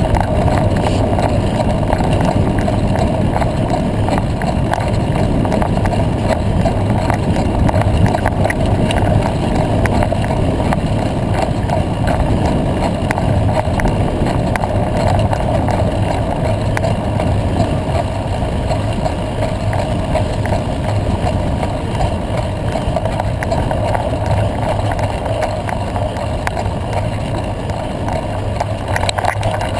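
Steady road noise of riding fast over a gravel dirt road: tyre rumble and rattle, with wind buffeting the microphone.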